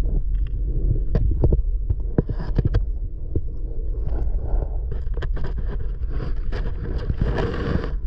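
Underwater sound picked up by a submerged camera among water-lily stems: a steady low rumble with scattered sharp clicks and crackles, thickest about a second in and again in the second half.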